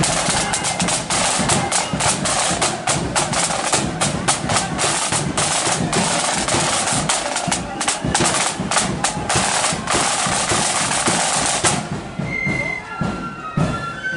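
Marching flute band's snare drums and bass drum beating a fast, dense marching rhythm. About twelve seconds in, the drums stop and a high flute melody begins.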